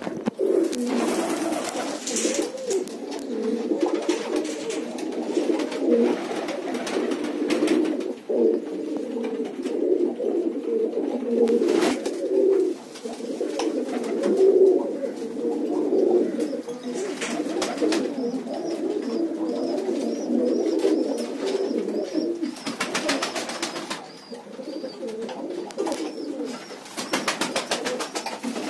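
A flock of domestic fancy pigeons cooing together, a continuous overlapping low cooing, with a few short sharp noises and a faint high repeated peep in the second half.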